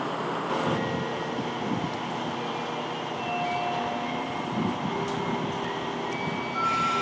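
Diesel railcar running with a steady mechanical hum and a few thin steady tones, a little louder near the end.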